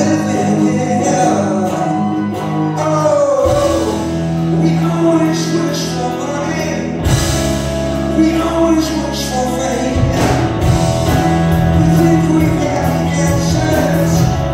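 Live rock band with a male lead singer: electric and acoustic guitars, bass and drums, heard from the audience. The bass comes in a few seconds in, and the low end grows heavier about halfway through.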